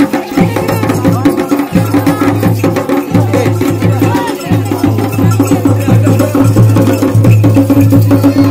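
Garhwali dhol and damau drums playing mandan dance music together, beaten steadily with dense, quick, sharp strokes over a low, steady ring.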